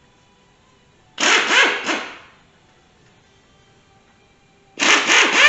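Air impact wrench hammering in two bursts of about a second each, one about a second in and one near the end, loosening the timing cover bolts on a Pontiac 350 V8 block.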